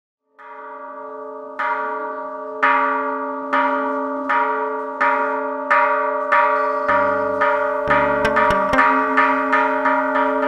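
Temple bell struck about once a second, each stroke ringing on into the next, as chầu văn ritual music begins. About seven seconds in, low drum beats and quick clicks join and the strokes come faster.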